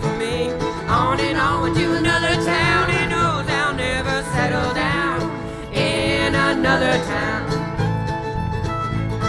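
Live acoustic band playing a country-bluegrass song: strummed guitar and a pulsing bass under a wavering melody line.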